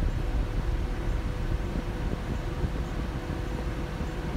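Porsche 996 radiator fans running steadily on high speed, with coolant still at about 101 °C.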